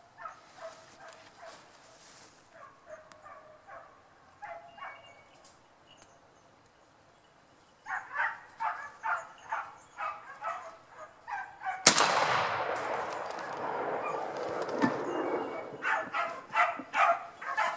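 Hunting dogs barking, faint at first, then a steady run of barks. About twelve seconds in comes a single loud 12-gauge shotgun slug shot that drops a wild boar, followed by a few seconds of noise, and the barking goes on.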